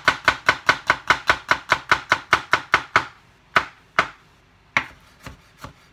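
Chef's knife chopping garlic cloves on a wooden chopping board: quick, even knocks of the blade on the board, about five a second, for about three seconds, then a few slower, scattered chops.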